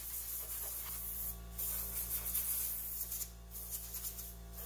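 Compressed-air blow gun hissing as it blows grinding dust off bare metal. It comes in bursts, with short breaks about a second and a half in and twice near the end.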